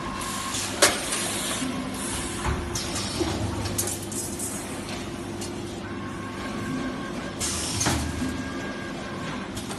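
CNC wire bending and TIG butt-welding machine running: a steady machine hum with repeated short bursts of hiss and a sharp clack about a second in.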